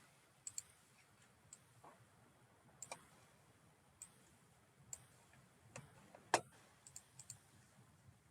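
Computer mouse clicking: about a dozen quick, irregularly spaced clicks over faint room tone, one louder click about three-quarters of the way through.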